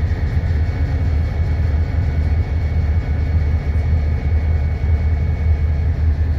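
Diesel locomotive engine idling: a steady low rumble with a faint, steady high whine above it.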